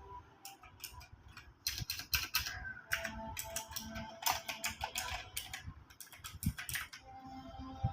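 Typing on a mechanical keyboard: an irregular run of sharp key clicks, thinning out for a moment near the end.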